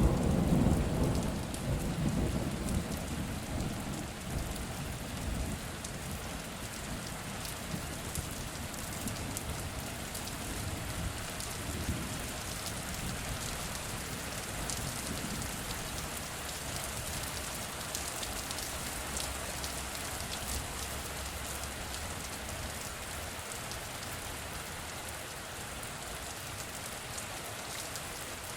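Heavy rain falling steadily, with a rumble of thunder at the start that dies away over about five seconds, and fainter distant rumbles later.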